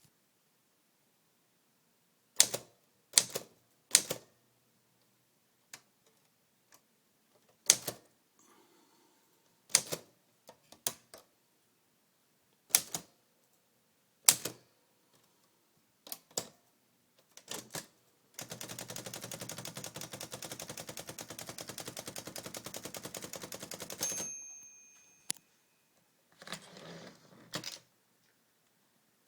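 Olivetti Lettera 22 manual portable typewriter: about a dozen separate key strikes spaced a second or two apart, then about six seconds of rapid, even clicking that ends in a single bell ring. A short rattle and a last clack follow near the end.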